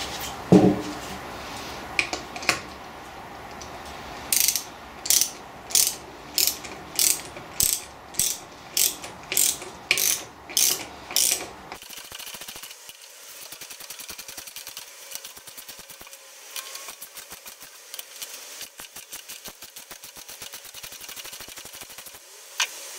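A socket ratchet driving coach screws into a wooden stool seat. After a knock near the start, it gives a regular run of about a dozen clicking strokes, roughly one every half second, then a quieter, faster continuous clicking as the screws are snugged up.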